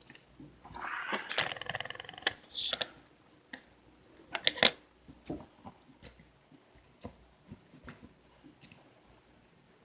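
Homemade borax-and-glue slime being handled and squished by hand: a scraping, rustling stretch about a second in, a few loud sharp clicks around four and a half seconds, then soft scattered clicks and pops.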